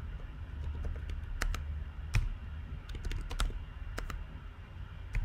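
Typing on a computer keyboard: irregular, scattered keystroke clicks over a low steady hum.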